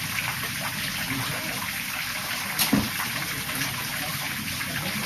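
Garden fountain water splashing and trickling steadily, with one brief knock about halfway through.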